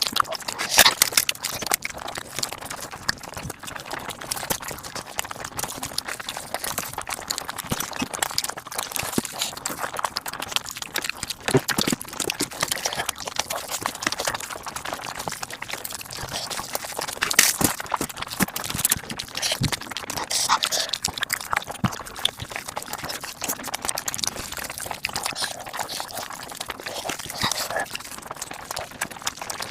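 Mukbang eating sounds played at five times speed: a dense, continuous patter of rapid chewing and mouth clicks.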